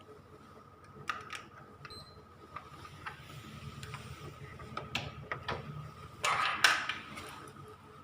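Photocopier clicking and clattering over a steady hum: a string of separate clicks, then a louder mechanical clatter about six seconds in.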